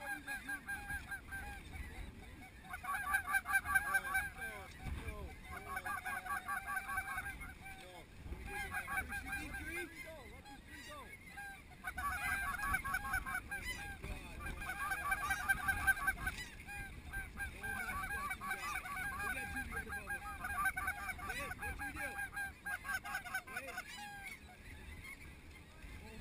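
Snow geese calling: a dense chatter of rapid, high yelping calls that comes in bouts of a second or two, again and again.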